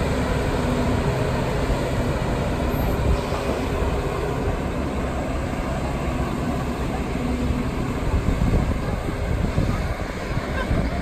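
Engine of a mobile boat hoist (travel lift) running steadily as it drives slowly with a boat slung underneath, a low rumble with a faint hum.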